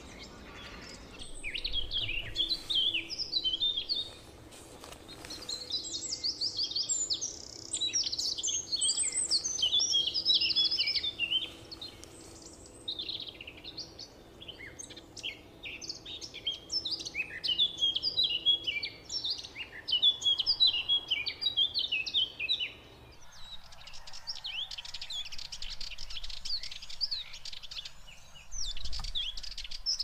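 Songbirds chirping and singing, a dense run of quick high chirps and trills with several birds overlapping, pausing now and then. A low background hum under them stops about three-quarters of the way through.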